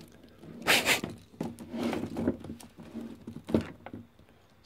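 Handling noise from an airless paint sprayer's high-pressure hose and its metal end fitting being moved about and brought up to the pump outlet: scattered clicks, knocks and rustles. The loudest knock comes just under a second in, and a sharp click about three and a half seconds in.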